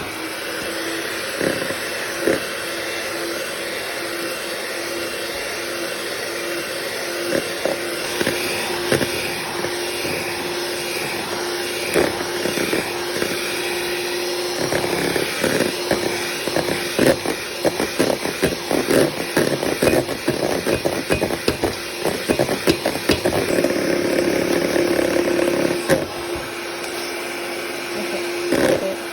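Electric hand mixer running steadily with a motor hum, its beaters whisking a mixture and clattering against the bowl. The clattering grows busier about halfway through.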